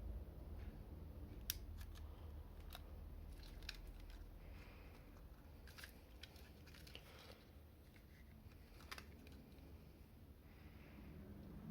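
Faint, scattered light clicks and soft rustles of hands handling an N gauge model train and its plastic packaging, with the sharpest click about a second and a half in.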